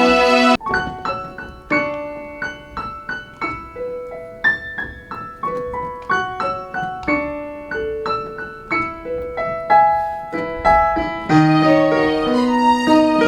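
Piano playing a slow melody of single struck notes that ring and fade, joined by lower chords about eleven seconds in. A fuller, louder passage of music breaks off about half a second in.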